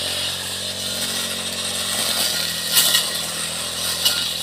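Petrol brush cutter's small engine running steadily while its blade cuts roadside grass, with one brief louder burst about three seconds in.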